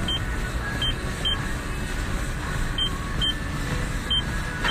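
Treadmill running steadily, its motor and belt making a constant whir.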